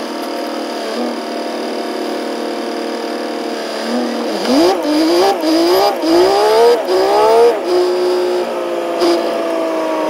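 Truck engine running, heard from inside the cab, a steady drone whose pitch rises and dips about five times in quick succession around the middle before settling again.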